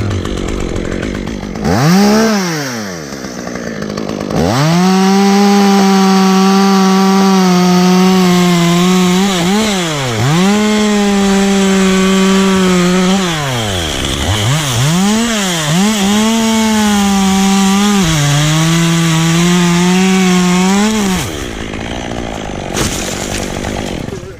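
Gas chainsaw revved up and cutting at full throttle through solid dead ash wood, its engine note dipping a few times as the chain loads in the cut, then let back down near the end.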